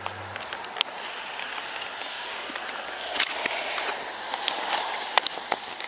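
Steady outdoor noise with scattered clicks and knocks.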